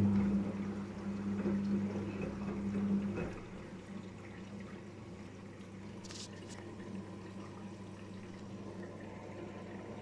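Daewoo DWD-FT1013 front-loading washing machine in its rinse: water rushing through the machine over a steady electric hum, which cuts off about three seconds in. After that the drum turns the wet laundry more quietly.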